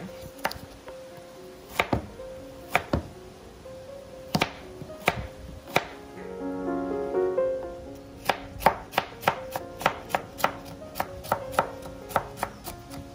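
Kitchen knife chopping vegetables finely: a few separate cuts at first, then quick, even chopping at about four to five strokes a second from about two-thirds of the way through.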